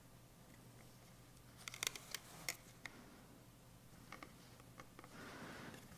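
Faint small clicks and taps of a GPS unit's plastic back cover being handled and lifted off its housing clips. There is a cluster of sharp clicks about two seconds in, a few lighter ticks later, and a soft rustle near the end.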